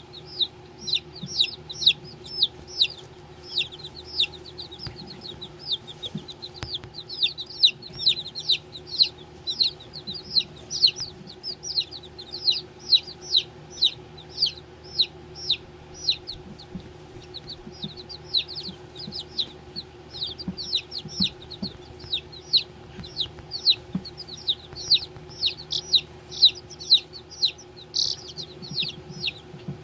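Baby chicks peeping continuously: a steady string of short, high peeps, each falling in pitch, about two or three a second, over a faint steady hum.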